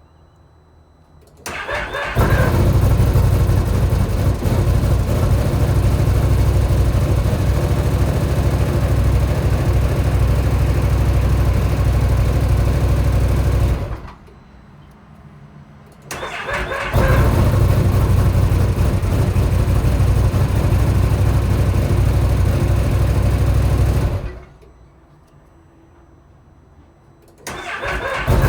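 2025 Can-Am XMR 1000 ATV's V-twin engine started three times. Each start opens with a short, higher-pitched noise as it cranks and catches; this is the weird noise the owner hears at starting. The engine then runs steadily for several seconds and is switched off, the last start coming right at the end.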